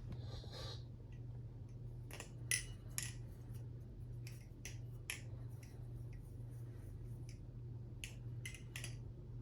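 A Jason Lyons Slimeline balisong (butterfly knife) being handled, its handles and latch giving a scattering of sharp clicks, several in quick succession, over a steady low hum.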